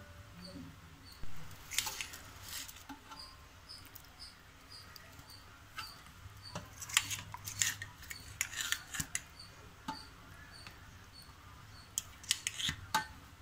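Kitchen utensils scraping and clinking against a large aluminium pot as rice and chicken gravy are layered in, in short clusters of clicks: about two seconds in, again around seven to nine seconds in, and near the end.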